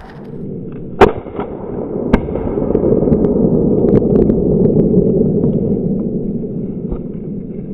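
Two shotgun shots at a flushed quail, about a second apart, the first much louder, followed by a low rushing noise that swells and fades.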